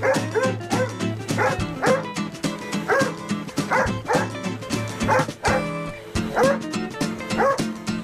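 Golden retriever barking over and over at a running upright vacuum cleaner, about two barks a second with a short pause a little past the middle, over background music.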